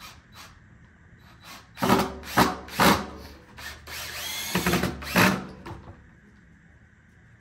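Cordless drill working into a wooden rail frame in three short bursts, then a longer run whose motor whine rises in pitch, stopping about six seconds in.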